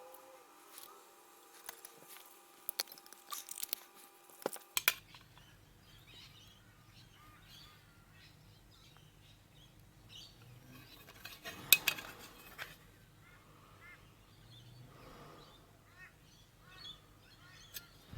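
Sparse clicks and knocks of sheet-metal parts being handled and fitted together, the loudest near the middle, over a faint low hum and small bird chirps.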